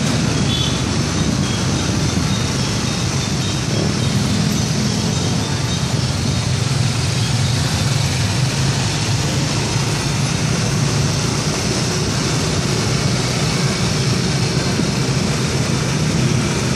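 Yamaha NMAX scooters riding together in a group, their single-cylinder engines running in a steady low drone mixed with road noise.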